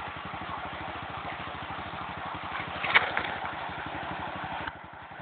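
ATV engine running at low speed with a steady, even train of firing pulses. A short, sharp louder sound comes about three seconds in, and the higher-pitched noise drops away suddenly near the end while the engine keeps running.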